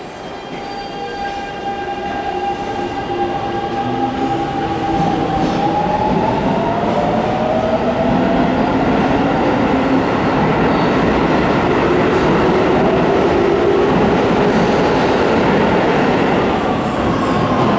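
Keio 7000 series electric train pulling away from a platform: a whine of several tones that rise and shift in pitch as it gathers speed, over running noise from the wheels that grows louder over the first several seconds and then holds steady.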